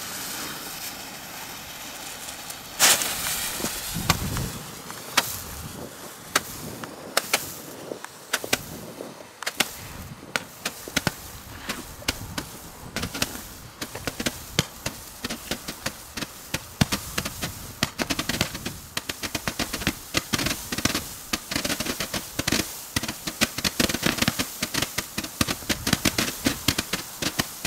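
Roman candle batteries firing in a fan, each shot a sharp pop as it throws a star. The first loud shot comes about three seconds in; the shots are scattered at first and quicken into a rapid, near-continuous popping over the last ten seconds.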